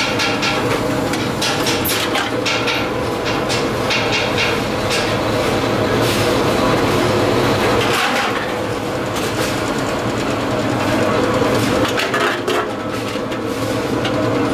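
A metal-forming press running with a steady hum, with frequent metallic clicks and knocks as a sheet-steel motorcycle fuel-tank half is worked against its ram.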